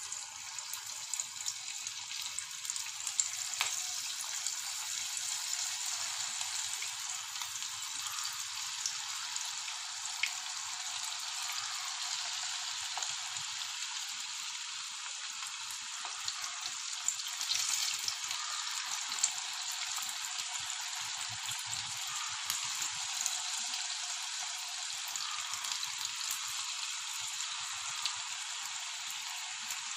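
Batter-coated cauliflower pieces deep-frying in hot oil: a steady sizzle with scattered pops and crackles. It swells a little just past halfway.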